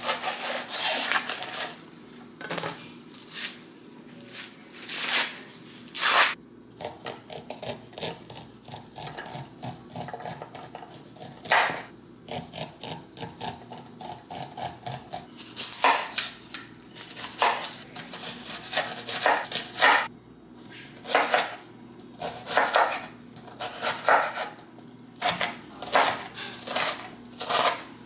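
Chef's knife chopping and slicing vegetables on a wooden cutting board: irregular knocks of the blade against the board, now single, now in quick runs of chops.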